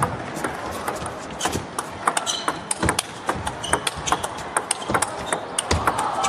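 Table tennis rally: a celluloid ball clicking rapidly off the bats and table in a fast back-and-forth exchange. Crowd noise starts to swell near the end.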